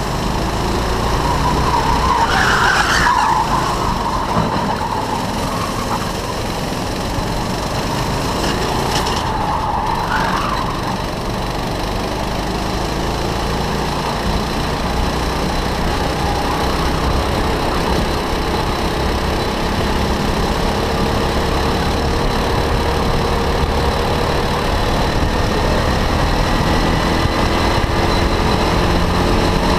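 Go-kart engine running hard, heard from onboard with heavy wind noise on the microphone. Tyres squeal briefly through corners about two to three seconds in and again around nine to ten seconds in, and the engine note climbs steadily through the second half as the kart accelerates down a straight.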